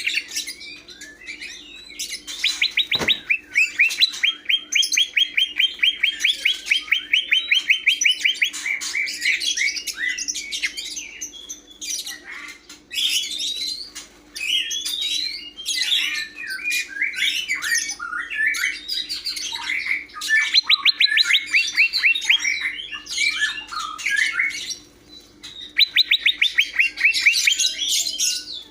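Green leafbird (cucak hijau) singing: long, fast trills of rapidly repeated notes alternating with varied chirps and whistles, over a faint steady low hum.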